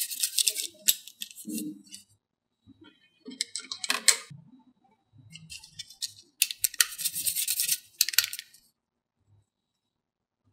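Several short bursts of light rattling and clinking, the longest about a second long roughly two thirds of the way in, as foam balls on wooden sticks are handled over a metal muffin tin.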